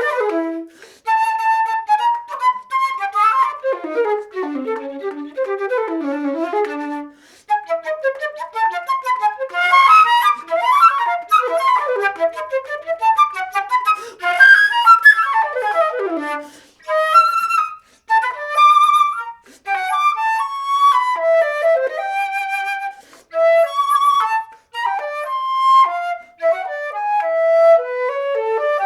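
Solo flute playing a contemporary piece: rapid streams of short, detached notes and quick falling runs, broken by a few brief pauses.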